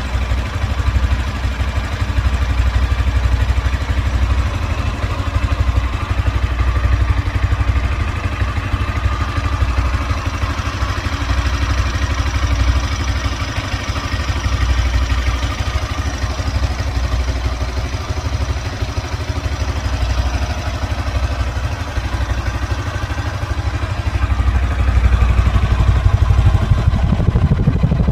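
Yamaha Sniper 155's stock single-cylinder engine idling steadily through its stock exhaust, a little louder near the end.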